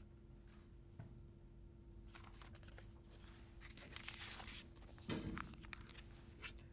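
Hushed room tone in a hall: a faint steady hum with soft rustling and shuffling, and a short muffled knock about five seconds in.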